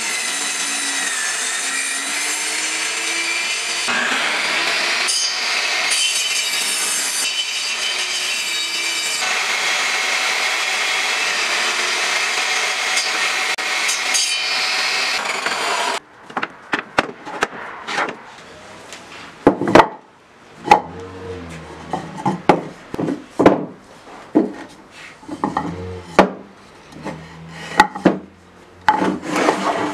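Benchtop table saw running and cutting through wooden boards, a steady sawing sound that cuts off abruptly about halfway through. It is followed by a series of irregular knocks and clunks of wooden boards being set down and shifted on a workbench.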